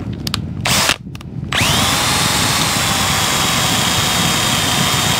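Cordless drill with a tiny bit drilling out the hole in a carburetor's throttle lever, enlarging it so the throttle cable sits down flat. A brief blip of the drill about a second in, then from about a second and a half in it runs steadily with a high whine that rises quickly and holds.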